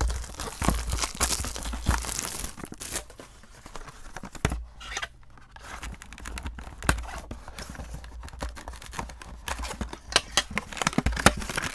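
Tearing and crinkling as a small cardboard Funko Mystery Minis box is picked open by hand, its seal peeled and the top flap pulled. The crackling comes in spells, busiest at the start and near the end.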